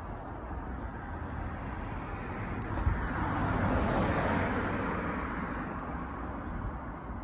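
A car passing by on a street: its noise swells to a peak about four seconds in and then fades, over a steady low rumble.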